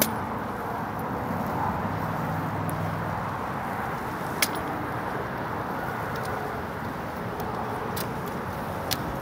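Steady outdoor hum like distant road traffic, with a few sharp clicks of hands slapping and gripping a replica Springfield 1903A3 drill rifle as it is handled and spun.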